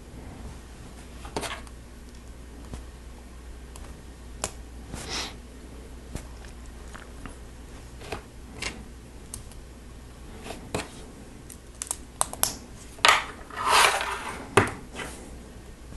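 Plastic Lego Technic parts being handled and pressed together: scattered small clicks, then a livelier stretch of clicking and rattling in the last few seconds.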